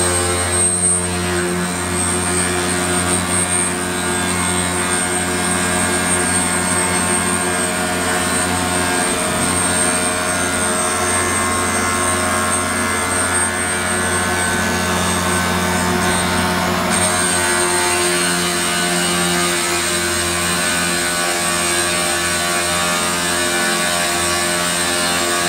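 Stone CNC machining center's spindle and grinding wheel running steadily as they grind the edge of a stone countertop slab under water coolant; a steady hum with a high whine.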